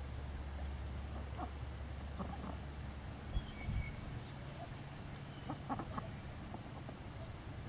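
Ducks giving short quacks a few times, over a low steady rumble. Two low thumps about halfway through are the loudest sounds.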